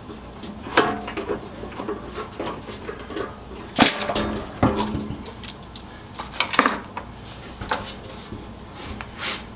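Furnace recirculation blower's small electric motor running with a steady low hum during a test run, while the fan unit is handled, with several sharp knocks and clatters against its housing and the bench.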